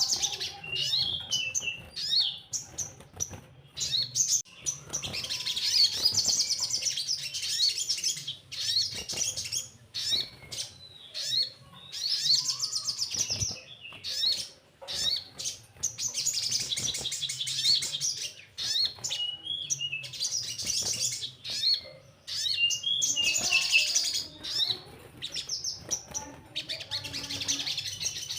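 Crimson sunbird (sogon) singing: high-pitched, rapid trills lasting one to three seconds, repeated several times, with short sharp chirps in between.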